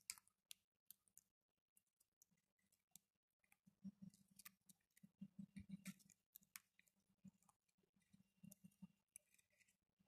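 Two green parakeets feeding from a ceramic bowl of chickpeas: quiet, irregular clicks and soft knocks of beaks pecking the food and tapping the bowl. The pecking is busiest a few seconds in and again near the end.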